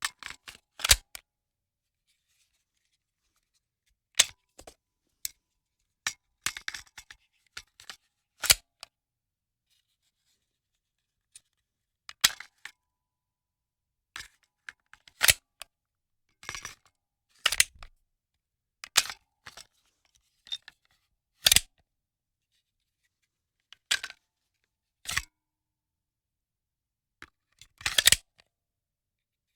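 Handgun magazine being loaded into the pistol: sharp metallic clicks and clacks in short clusters, about ten times, with silence between.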